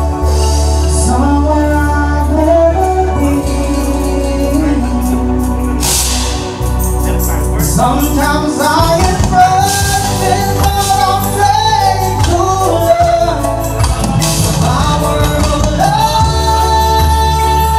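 Live band playing, a male vocalist singing a sustained, bending melody into a microphone over keyboards and drums, with a steady low bass underneath.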